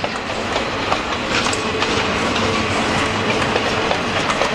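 Freight cars rolling past on the rails, steel wheels clicking and clacking over the track with a steady rumble.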